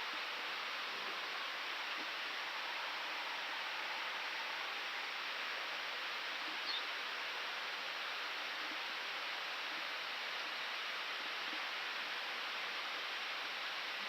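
Steady rushing hiss of an Airbus A319 cockpit in climb: the even background of airflow and ventilation noise on the flight deck.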